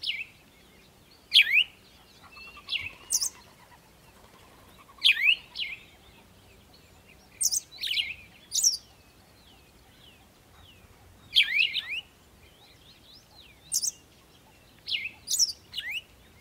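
A bird chirping: clusters of short, sharp, high calls that sweep quickly up and down, repeated every second or two.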